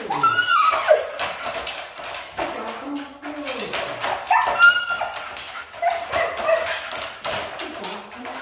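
Siberian husky in a wire crate vocalizing in a series of whining, howl-like calls that slide up and down in pitch, about four of them. Frequent clicks and rattles run under the calls as the dog moves about the crate.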